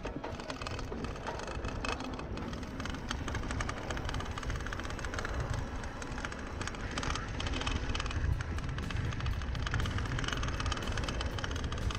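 Mountain bike riding down a dry, rutted dirt singletrack: wind rushing over the camera microphone with tyre rumble and the bike clattering over bumps, the clatter getting busier over the last few seconds.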